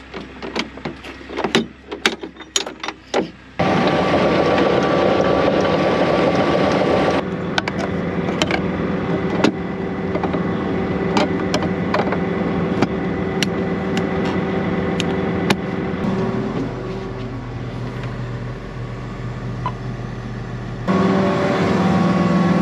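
Cotton picker running: a run of sharp clicks, then a loud steady machine drone that cuts in abruptly a few seconds in and shifts in level twice as the picker is operated while being folded toward transport mode.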